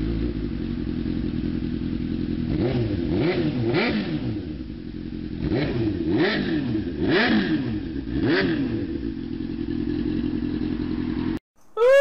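Motor-vehicle engine sound effect: a steady engine running, revved up and down several times, cutting off suddenly near the end.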